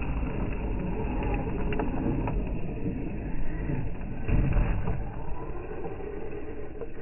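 Electric RC rally car driving over rough ground: a steady rumble of tyres and chassis with a few sharp clicks from bumps, and a faint motor whine that rises and falls about two-thirds of the way through.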